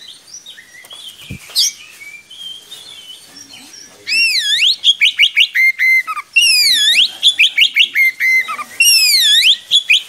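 Oriental magpie-robin (kacer) singing. It starts with softer, scattered notes, then from about four seconds in it repeats a loud phrase three times: a swooping whistle that dips and rises, followed by a quick run of short clipped notes.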